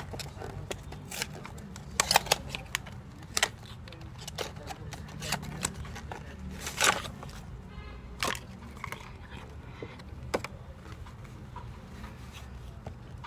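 Cardboard lens-kit packaging being handled: scattered sharp clicks, taps and short crackly rustles as the box and its printed insert are worked open, then a black drawstring pouch is handled. A steady low hum runs underneath.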